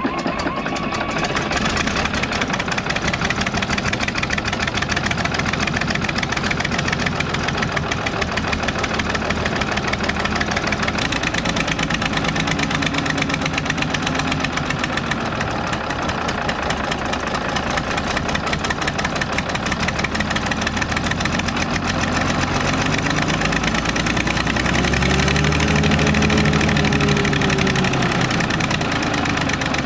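Fiat-Allis 14B crawler dozer's diesel engine running loudly just after starting, on its first run after sitting for four years. It is rough and knocking, and its pitch rises and falls twice as it is revved.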